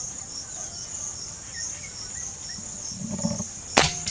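Crickets chirping steadily in a fast pulsing trill. About three and a half seconds in, a single sharp crack as the Diana Stormrider Gen3 PCP air rifle fires.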